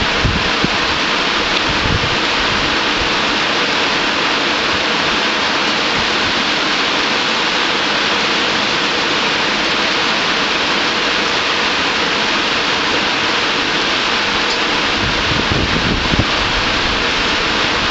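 Heavy rain falling, a steady, dense hiss, with a low rumble coming and going about a second in and again near the end.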